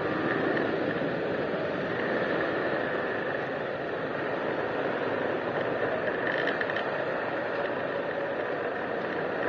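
Motor scooter running while being ridden, a steady close-up mechanical rattle of its engine and drive mixed with road noise.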